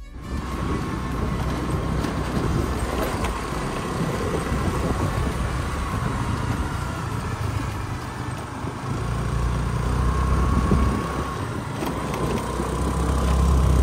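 Small single-cylinder scooter engine running while riding, with wind rushing over the microphone. The engine gets louder about ten seconds in and again near the end as it works hard up the slope.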